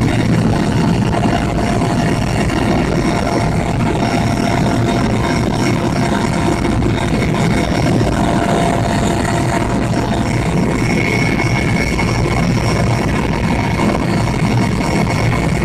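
Helicopter in flight, heard from on board: a steady engine and rotor noise with a thin, even whine running through it.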